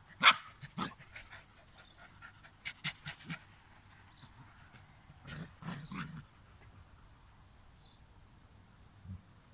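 Bernese mountain dogs, a mother and her puppies, making short yips while they play. The sharpest yip comes right at the start, several smaller ones follow over the next few seconds, and a longer run of cries comes about halfway through.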